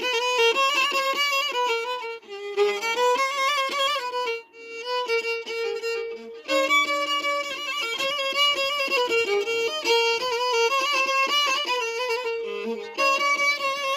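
Background music: a solo violin melody played with vibrato, breaking off briefly about four and a half seconds in before a new phrase begins.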